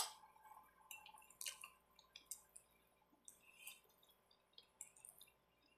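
A single sharp clink at the start, like a fork on the plate, then faint, scattered wet clicks and smacks of a mouth chewing spaghetti.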